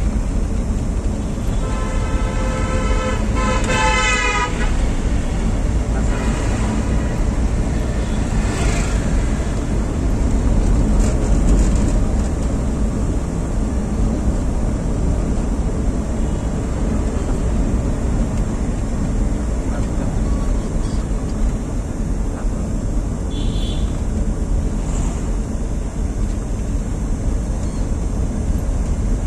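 Steady car engine and road rumble heard inside the cabin while driving in town traffic. A vehicle horn sounds for about three seconds near the start.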